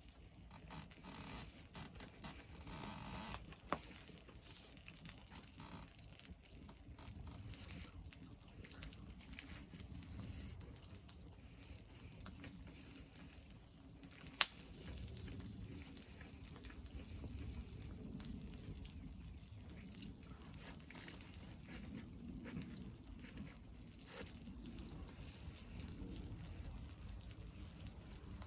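Faint crackling of a small wood fire, with scattered ticks and a couple of sharper pops.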